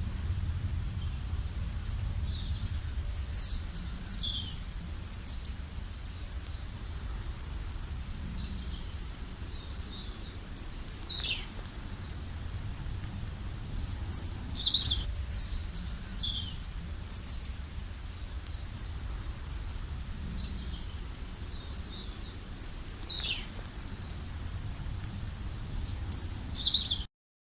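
Songbirds chirping and calling: short, high, quick notes and little falling phrases, repeated at irregular intervals over a low steady rumble. The sound cuts off suddenly near the end.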